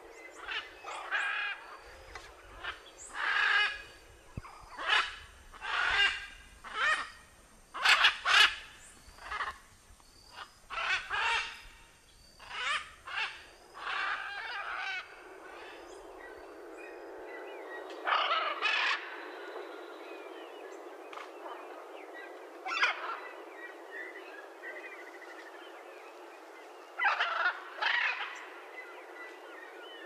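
Blue-and-yellow macaw squawking: loud, harsh calls about one a second for the first fifteen seconds, then only a few scattered calls.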